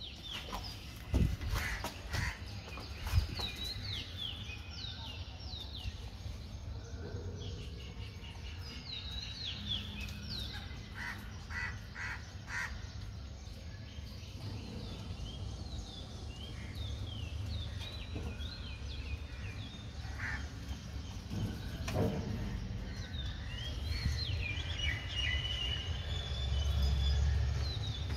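Outdoor ambience of birds calling, many short falling chirps throughout, with a few sharp knocks and a low rumble that grows louder near the end.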